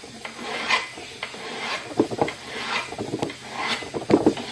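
Hand file rasping across the steel edge of a vise in repeated strokes, about one a second, smoothing off the burred, banged-up edge.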